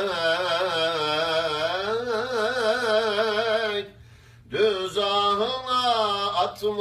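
A man's solo voice chanting a Turkish kaside (religious ode) in a melismatic style, drawing out long vowels with a rapidly wavering, ornamented pitch. He breaks off for a breath about four seconds in, then resumes the chant.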